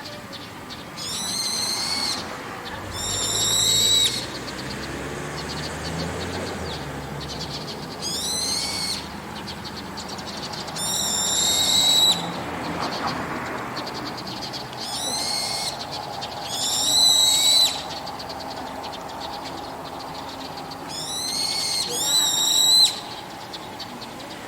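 Brown-eared bulbul giving loud, shrill calls that rise in pitch. They come in pairs a few seconds apart, four pairs in all, with the second call of each pair the louder.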